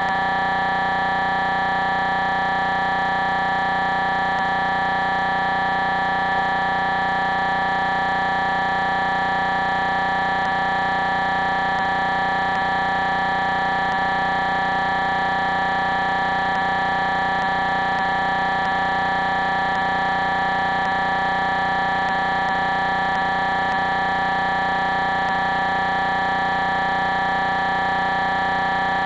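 Steady, unchanging electronic buzz of many fixed tones held at one pitch and level throughout: a digital audio glitch from a live stream that has dropped and frozen.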